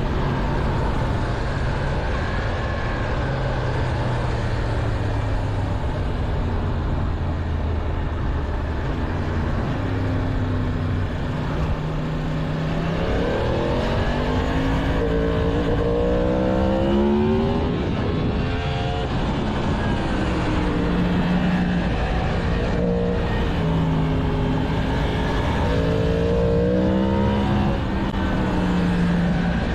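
A 2022 Yamaha MT-10's 998 cc crossplane inline-four on its stock exhaust, heard from the bike while riding. The engine holds a low steady note at first, then revs hard with a sharply rising pitch about halfway through, drops suddenly at a gear change, and rises and falls several more times, over a steady rush of wind and road noise.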